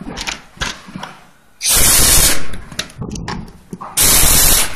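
Cordless impact driver driving screws through a metal bracket into a chair's plywood seat, in two short rattling bursts, the first about two seconds in and the second near the end. Light clicks and handling noise come between them.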